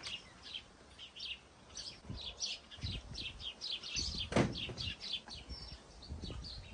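Birds chirping, a busy chorus of short quick chirps several times a second, with one sharp click a little past four seconds in.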